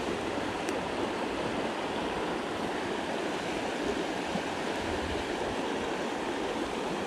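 Steady rush of a trout stream's flowing water.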